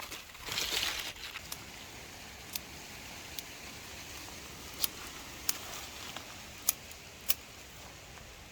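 A short rustle of leafy plant material, then a handful of sharp snaps spaced about a second apart, as stems of climbing wattle are cut or picked by hand.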